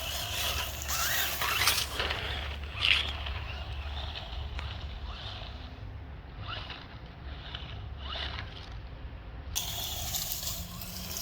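PKX 1:16 scale off-road RC monster truck driving through water, with sloshing and splashing.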